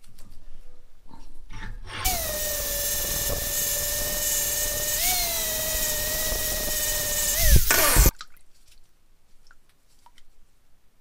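Angle grinder grinding the steel face of an old hammer head, a steady whine with a brief rise in pitch about halfway through. It cuts off suddenly after about six seconds.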